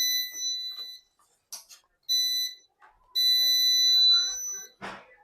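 Intex UPS's built-in buzzer beeping on and off: three beeps of one high tone, a short one and a longer one, as the unit keeps restarting instead of giving output. A sharp click near the end.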